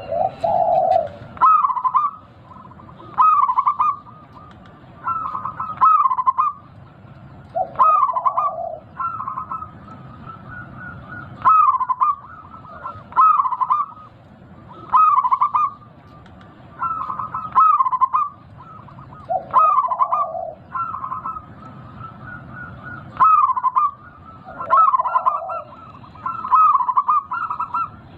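Local zebra dove (perkutut) with a big voice cooing its song, a short rolling phrase repeated about every two seconds, some phrases starting with lower notes.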